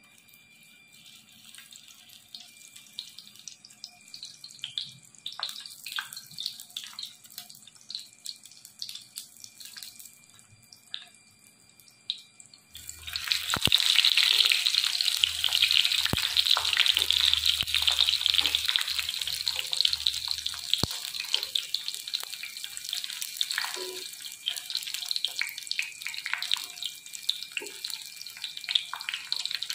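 Tofu deep-frying in hot oil in a cast-iron skillet. At first there are sparse crackles and pops; partway through, a sudden jump to a loud, dense, steady sizzle that carries on with scattered pops.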